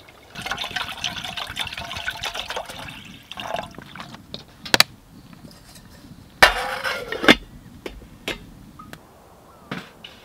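Water poured from a bottle into a metal camping pot for about three seconds, followed by a few light clinks and a loud clatter with a short ring as a metal lid is set on the pot.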